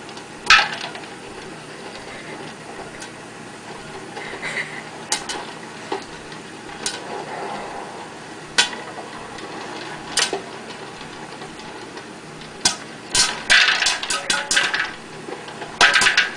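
Popcorn popping in an electric stirring popcorn popper under its clear plastic dome: single sharp pops at first, a second or two apart, quickening to rapid, crowded popping about three-quarters of the way in, over the popper's steady running sound.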